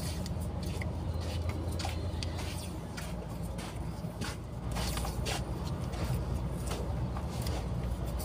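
Vinyl electrical tape crackling as it is peeled off the roll and wrapped around a forklift's wiring harness, in short irregular pulls, over a steady low hum.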